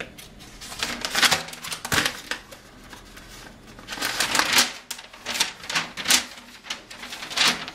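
Paper and cardboard packaging of a door lock set rustling and crinkling in the hands, with irregular sharp crackles and clicks.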